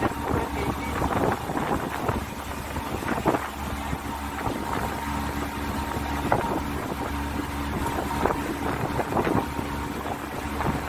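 Motor tour boat's engine running with a steady drone, with wind gusting on the microphone.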